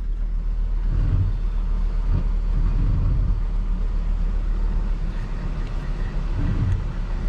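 Pickup truck engine running at low speed while reversing a trailer into place: a steady low rumble that swells briefly a few times.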